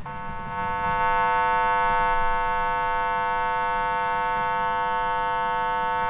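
A steady 100 Hz square-wave tone from an Arduino's tone output wired to a headphone jack, a buzzy electronic drone held at one pitch.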